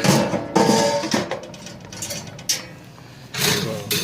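Metal grill parts clanking and ringing as they are set back into a steel grill smoker body. A ringing clang in the first second, a sharp knock midway, and scraping near the end.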